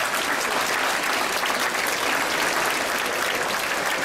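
Large crowd applauding steadily for a scoring strike in a kendo match.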